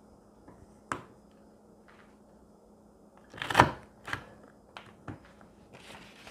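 Plastic planner punch board pressed down by hand, punching a hole through paper with one loud short clunk about three and a half seconds in. Lighter plastic clicks and taps from handling the board and paper come before and after it.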